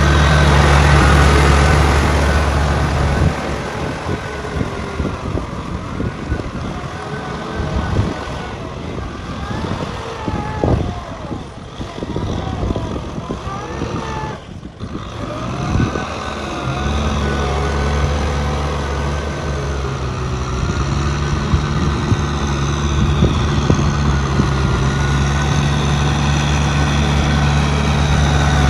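Kubota tractor's diesel engine running steadily as it drags a rotary tiller through a muddy rice paddy. The engine hum drops back for a stretch in the middle and returns strongly near the end.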